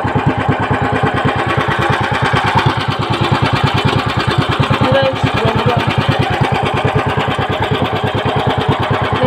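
Small engine of a motorized outrigger fishing boat running steadily under way, with an even, rapid chugging of about ten firing pulses a second.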